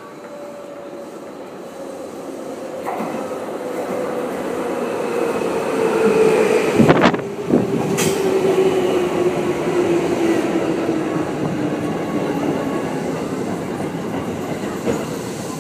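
A JR 211-series electric train pulls in alongside the platform. Its running noise builds as it nears, with a whine that falls steadily in pitch as it slows. There are a few sharp clacks from the wheels about seven seconds in, when it is loudest.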